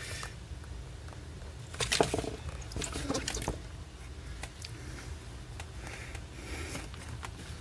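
Razor blade cutting through a plastic cable-management strip: irregular scraping and crackling with scattered clicks, loudest about two seconds in and again around three seconds, over a low steady hum.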